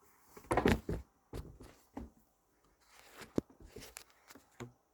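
Short knocks and clicks of coffee grinder parts being handled and set in place, the loudest cluster about half a second in and a sharp click past the three-second mark; the grinder motor is not running.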